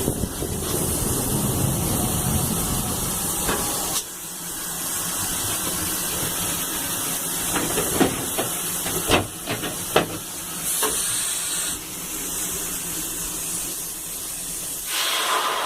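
Steam hissing steadily from GWR pannier tank locomotive 9466, with a low rumble in the first few seconds. Three or four sharp knocks come midway.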